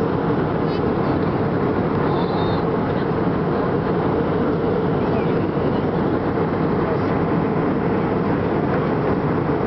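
Steady engine and airflow noise of an Airbus A320-family airliner in flight, heard inside the passenger cabin: an even, unbroken rush with a strong low hum and no separate events.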